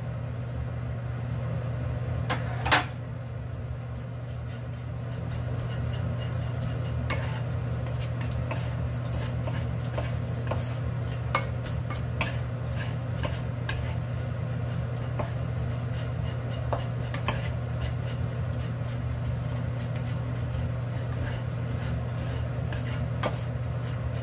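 A wooden spatula stirring and scraping small dried anchovies around a nonstick frying pan, with frequent light clicks and knocks against the pan and one sharper knock about three seconds in, over a steady low hum.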